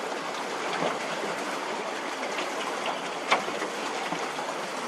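Water churning and splashing steadily around a pedal-driven pontoon paddle boat under way, its paddle wheel turning, with one sharp knock about three seconds in.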